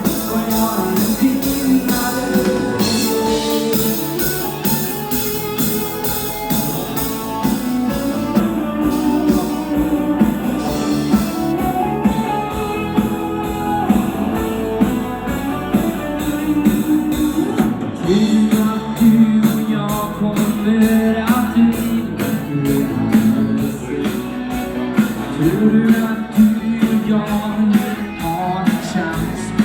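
A dance band playing an upbeat pop song, with a steady drum beat, guitar and singing.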